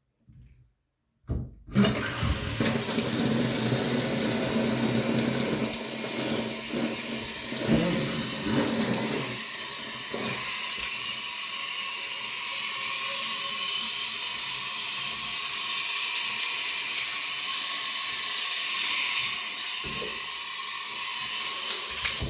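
Water spraying steadily from a newly installed adjustable handheld shower head, turned on about two seconds in, as it is tested for leaks and flow.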